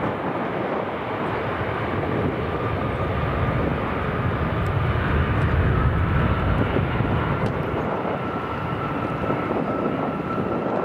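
Boeing 787-9's Rolls-Royce Trent 1000 jet engines at takeoff power: steady jet noise with a faint whine that creeps slightly up in pitch. The low rumble swells to its loudest about halfway through.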